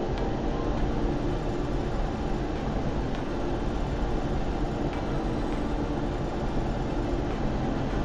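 Steady road and engine noise inside a moving car's cabin: tyres running on asphalt, with the engine's hum underneath.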